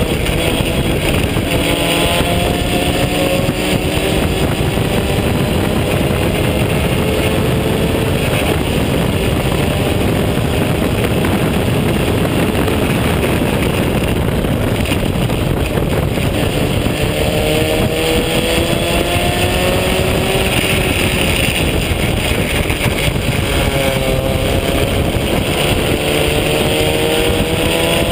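Onboard sound of a vintage open-wheel race car under hard acceleration: the engine note climbs in pitch in the first few seconds, holds, climbs again about two-thirds of the way through, dips briefly, then climbs once more near the end, over a dense rush of wind and road noise.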